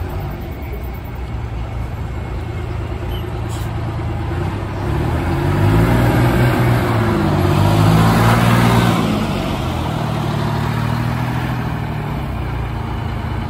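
GM 'New Look' fishbowl transit bus pulling away and driving past, its two-stroke Detroit Diesel engine accelerating. The engine note rises in pitch and grows loud about five seconds in, is loudest as the bus passes close, then eases off as it drives away.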